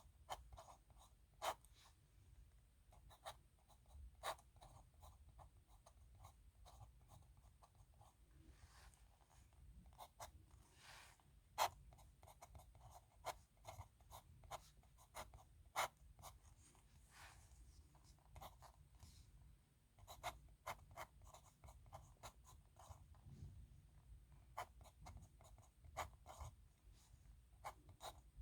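Dip nib pen scratching on paper, faint: many short ticks and scratches of pen strokes, with a few longer drawn strokes between them.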